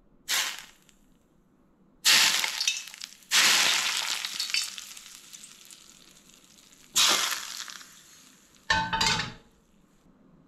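Smoking-hot vegetable oil poured over a steamed fish topped with green onion and garlic, sizzling in several bursts that each fade away, the longest lasting several seconds. A short knock comes near the end.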